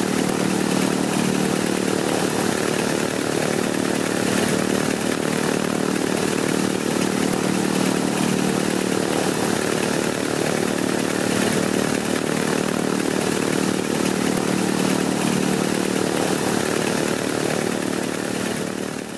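Wright Cyclone R-1820 nine-cylinder air-cooled radial aircraft engine running steadily, fading out near the end.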